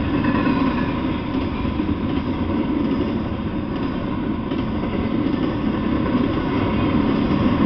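Double-stack intermodal freight train rolling past: a steady rumble of the well cars' wheels on the rails.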